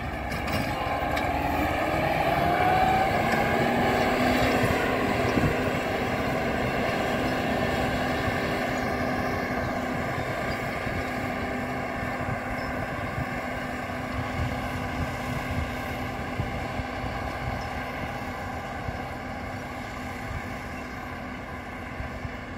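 T-150K tractor's diesel engine working hard under load while pulling a field cultivator. It revs up over the first few seconds, then holds a steady note and slowly fades as the tractor moves away.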